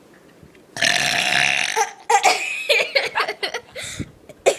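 A child's long, loud burp, starting about three-quarters of a second in and lasting about a second, followed by giggling laughter.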